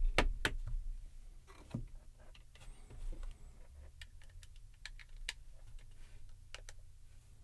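Irregular light clicks and taps from small objects being handled, over a low steady hum.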